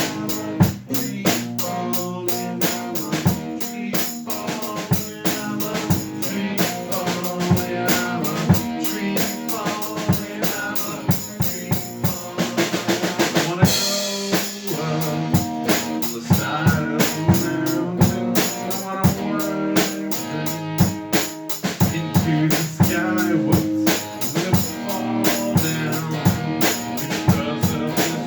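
Rock band playing an instrumental break: a drum kit keeping a steady beat with bass drum, snare and rimshots under guitar and bass, with a cymbal wash about halfway through.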